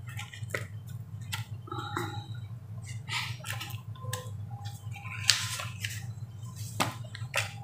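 Handling noise of a new leather wallet: short irregular rustles and light clicks as it is opened and the white paper stuffing is pulled out, the loudest rustle about five seconds in. A steady low hum runs underneath.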